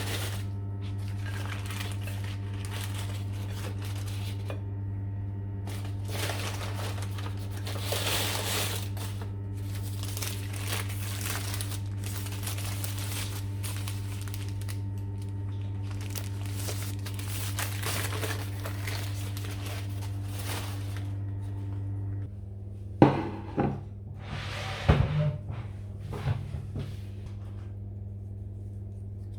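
Paper food bag and burger wrapper crinkling and rustling in repeated bursts, over a steady low hum. A few sharp knocks come near the end.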